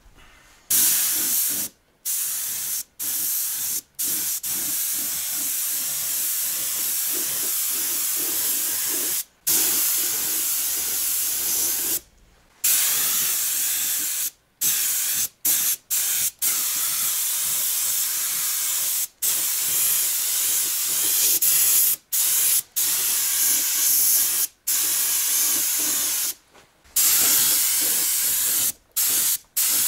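Compressed-air gravity-feed paint spray gun spraying paint: a loud, steady hiss that stops and restarts many times with short gaps as the trigger is released and pulled again.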